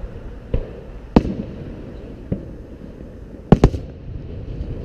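Aerial fireworks shells bursting in the sky: a series of about five sharp booms, the loudest a quick double bang about three and a half seconds in.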